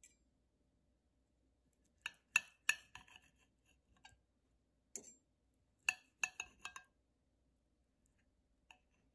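Fork and knife clinking against a ceramic plate while cutting roasted carrot: a cluster of sharp ringing clinks about two seconds in, another cluster from about five to seven seconds, and a single clink near the end.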